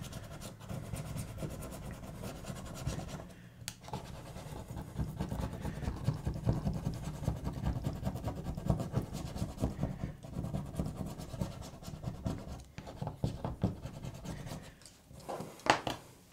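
Small metal scraper scraping softened white adhesive residue off the battery bay of a Samsung Galaxy A20e, a rapid run of scratching strokes, with a couple of sharper clicks near the end.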